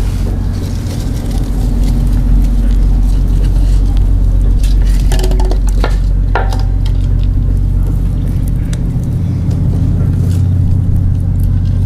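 An engine running steadily with a low hum, with scattered light clicks and clinks over it.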